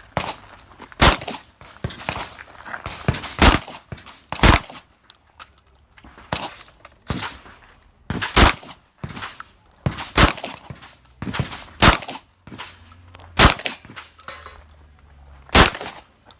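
Shotgun fired repeatedly during a dynamic shooting stage: about ten loud shots spaced irregularly a second or two apart, with fainter clicks and knocks between them.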